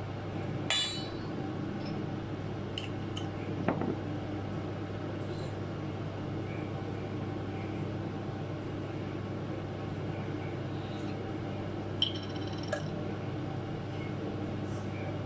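Kitchenware clinking a few times, short ringing knocks of glass or ceramic dishes being handled, over a steady low hum.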